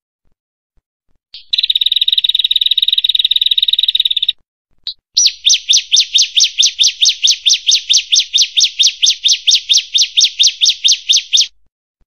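Prenjak, a small Indonesian warbler, singing. A buzzy trill of about three seconds comes first, then a single short note, then a fast run of sharp repeated notes, about five a second, lasting some six seconds.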